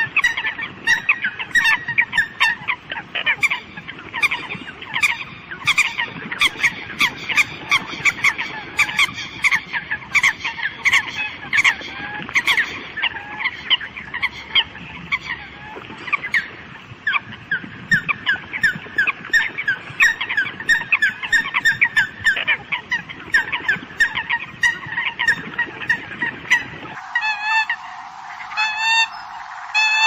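Flock of Eurasian coots calling: many short, honking calls overlapping in a dense, continuous chorus. About 27 seconds in, the sound changes abruptly to a cleaner recording of fewer, more spaced calls.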